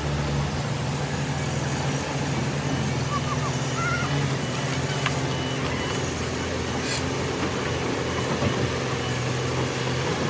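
A heavy machine's engine running steadily at an even pitch.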